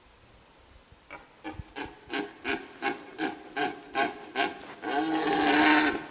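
Red deer stag roaring in the rut: a run of about ten short grunting calls, about three a second, followed by one long, louder call.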